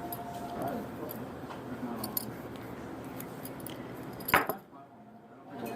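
Background noise of a restaurant table: a steady murmur with light clinks of cutlery and dishes. One sharp knock comes about four seconds in, and the sound drops away after it.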